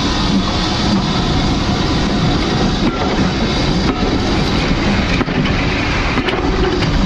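Passenger coaches of a steam-hauled train rolling past close by, their wheels rumbling and clattering steadily over the rails.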